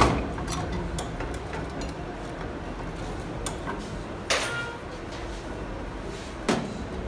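Metal hand tools and parts knocking and clinking on a diesel injection pump being dismantled: a sharp knock at the start, scattered light ticks, a ringing metal clink a little over four seconds in and another knock about six and a half seconds in.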